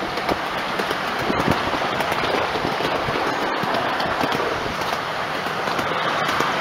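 Miniature railway train running along the track, a steady rolling rumble with a fine clatter of small wheels on the rails.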